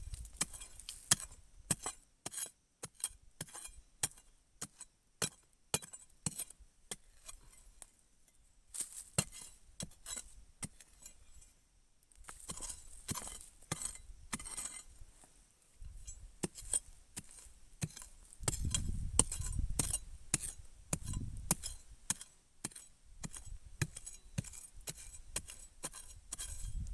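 Flat metal digging blade chopping into stony forest soil around a shrub's root ball: irregular sharp strikes, about one or two a second, with brief pauses and clinks off stones.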